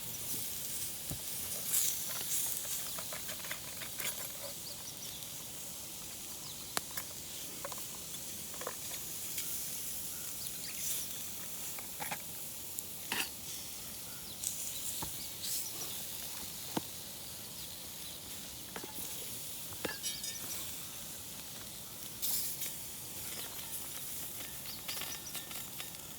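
Fat sizzling steadily on an iron griddle, with scattered sharp pops; a lump of fat is being rendered down for cooking oil.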